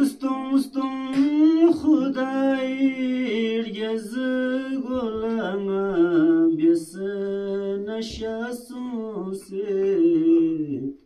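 Unaccompanied singing voice chanting a slow melody, with long held notes and a wavering pitch, in phrases broken by short breaths. It stops just before the end.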